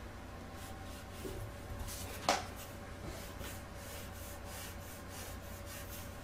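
A pen scratching across paper in a run of quick drawing strokes, with a single sharp tap about two seconds in.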